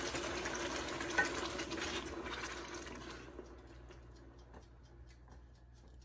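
Blended pepper and onion purée sizzling in hot palm oil just after being poured in, stirred with a spatula. The dense sizzle dies down about three seconds in to faint scattered crackles as the oil cools under the purée.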